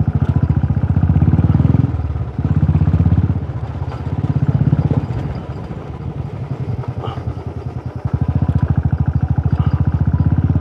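Motorcycle engine running as the bike is ridden slowly, its firing pulses swelling louder as the throttle opens in the first few seconds and again near the end, easing off in between.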